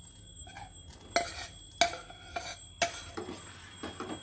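A steel spoon clinks three times, about a second apart, as grated paneer is tapped off into the pot. A steel ladle then scrapes and knocks softly as it stirs milk in a steel pot.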